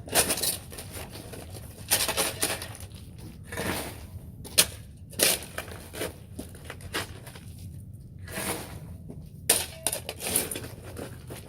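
A shovel scraping and scooping broken concrete and gravel: a dozen or so irregular gritty scrapes and clinks of stone on metal.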